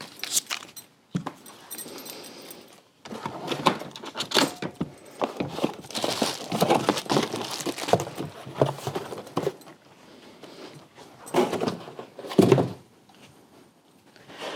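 Pram wheels and plastic packaging being handled: rustling with a series of clicks and knocks, the two loudest thunks about three-quarters of the way through.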